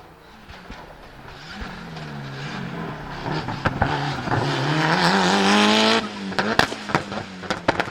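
Mitsubishi Lancer Evo VI Group A's turbocharged 4G63 four-cylinder accelerating hard and growing louder as it nears, its pitch dipping at gear changes and then climbing steadily. About six seconds in the engine note cuts off as the driver lifts, and the anti-lag misfiring system fires a rapid string of sharp bangs.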